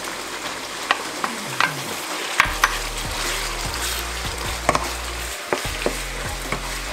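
Wooden spoon stirring sliced hot dogs into a pork stew simmering in a thick tomato sauce in a nonstick frying pan. The sauce sizzles steadily, and the spoon clicks and knocks against the pan every so often. A low steady hum comes in about two and a half seconds in.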